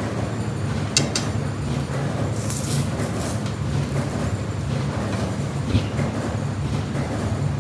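A steady low mechanical hum, with two sharp clicks about a second in and a brief hiss a little later.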